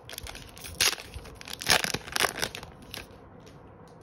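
Foil Pokémon booster pack wrapper being torn open and crinkled by hand: a run of sharp crackling rips, loudest about one and two seconds in, stopping about three seconds in.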